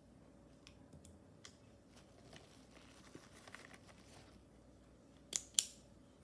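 Plastic pens and pencils clicking and rattling against each other as a hand rummages through a fabric pencil case, with two sharp clicks close together near the end.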